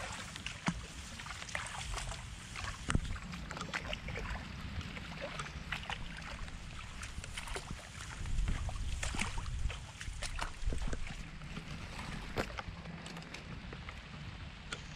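A steady patter of rain and running water, with scattered splashes and rustles of bare feet moving through wet grass. A low rumble swells for a couple of seconds midway.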